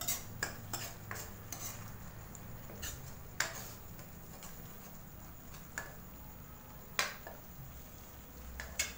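Metal spoon stirring and scraping thick masala paste around a metal kadhai, with scattered sharp clinks of spoon on pan, the loudest about three and a half seconds in and again about seven seconds in.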